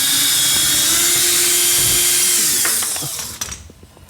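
Electric drill-driver running steadily as it backs out a bolt, its motor whine holding level, then stopping about three seconds in.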